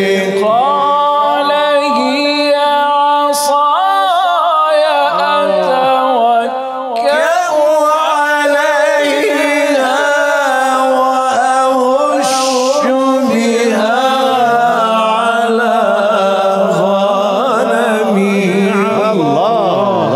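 A man reciting the Quran in melodic tilawa style, unaccompanied, holding long ornamented notes through Surah Ta-Ha verse 18 ('qala hiya 'asaya atawakka'u 'alayha wa ahushshu biha 'ala ghanami'). After a brief break about seven seconds in, a second male reciter takes up the phrase.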